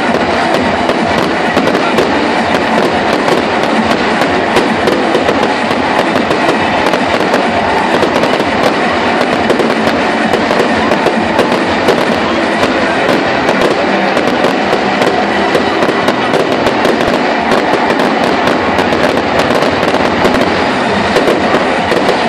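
Fireworks going off in quick succession: dense, constant crackling of many bursts at once, loud and even in level.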